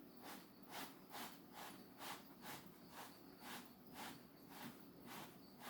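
Threading die cutting threads on a 3/8-16 exhaust manifold bolt, turned by hand: faint, even scraping strokes a little over twice a second.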